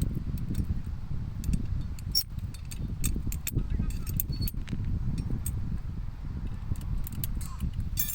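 Scattered light clicks and clinks, irregular and not in any rhythm, over a steady low rumble.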